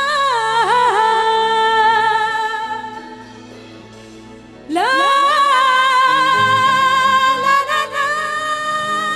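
A woman singing a long held note with vibrato over soft instrumental accompaniment; the note fades out about three seconds in. She comes back in near the middle, her voice sliding up into a new note that she holds to the end.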